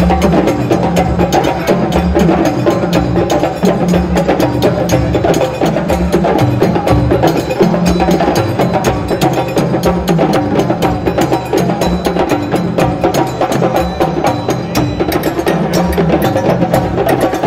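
West African percussion ensemble of djembes and dunun bass drums on stands, playing a dense, steady dance rhythm with the low drum notes shifting in a repeating pattern.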